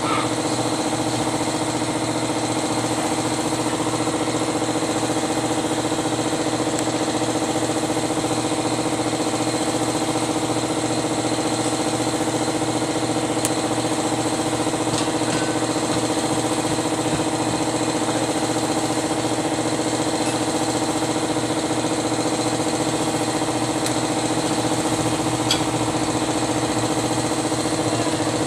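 An engine running steadily at one constant speed, an even hum that does not change, with a few faint clicks over it.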